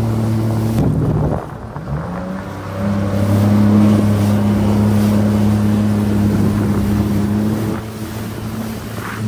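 A jet ski's engine running at speed, with the rush of wind and spray over the water. The engine note drops away about a second in, climbs back up and holds steady, then eases off again near the end.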